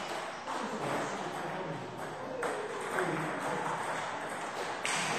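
Table tennis ball tapping three times, each a sharp click about two seconds apart, over faint voices.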